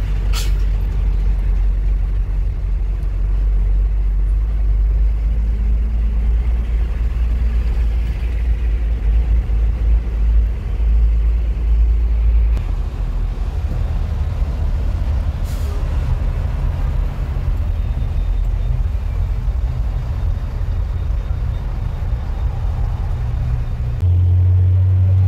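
Hino truck's diesel engine running as the truck drives slowly, heard from inside the cab as a steady low drone. The engine note shifts higher about halfway through and swells into a louder steady hum near the end. There are two brief sharp sounds, one just after the start and one about two-thirds of the way through.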